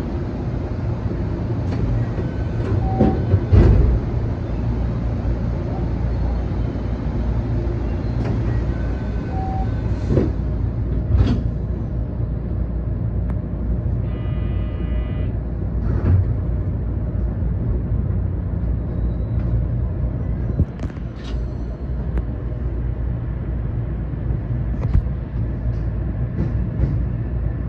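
Steady low hum and rumble inside the cab of an electric train standing at the platform. Scattered clicks and knocks, two short beeps in the first ten seconds, and a brief buzzing tone about halfway through.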